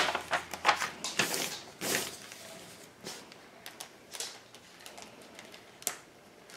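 Rustling and light clicking of a paper instruction sheet and cardboard packaging being handled and unfolded, busiest in the first two seconds, then a few scattered ticks.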